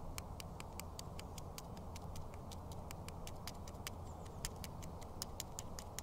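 Point of a small folding knife tapping and picking at an eggshell to make a hole in its top: faint, quick light clicks, about six a second.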